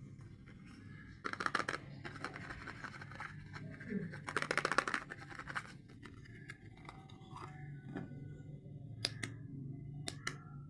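Soap packaging being unwrapped by hand: two bursts of rapid crackling, the second longer, then a few sharp clicks near the end.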